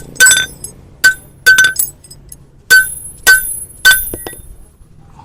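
Metal hoof-trimming tools striking with sharp ringing clinks, about seven irregularly spaced hits in the first four seconds, then quieter.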